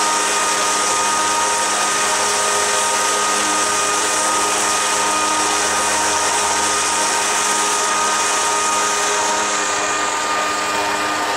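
Electric jet-drive unit running steadily at about half throttle: a steady motor and impeller whine over the rush and splash of the churning water jet. The water rush grows fainter near the end.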